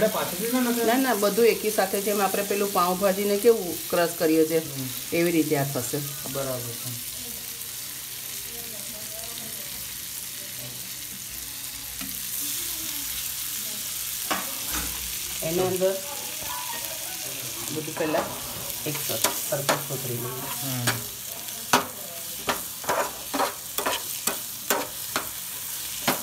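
Chopped cabbage, capsicum, tomato and onion sizzling in butter and oil in a non-stick frying pan while being stirred, with a steady frying hiss. In the second half a spatula taps and scrapes against the pan in quick strokes.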